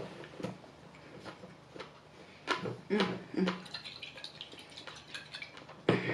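Glass hot sauce bottle being shaken and handled, giving a scatter of short taps and knocks. The loudest knock comes near the end as the bottle is set down on the table.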